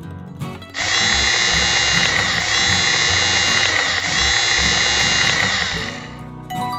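Background music with a loud, harsh, steady whirring sound effect that starts abruptly about a second in and lasts about five seconds.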